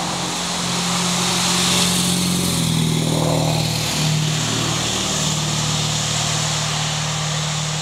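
An old work truck driving past with a faulty exhaust that needs fixing. Its engine hum dips and changes pitch about halfway through, over a steady rush of exhaust and road noise.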